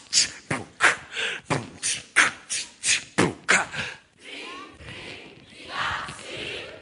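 A group of people beatboxing together, voicing percussion syllables like "tu, cu, tu, ta, ca, ta" in an even rhythm of sharp strokes, about three a second. The rhythm stops after three and a half seconds, and a softer murmur of voices follows.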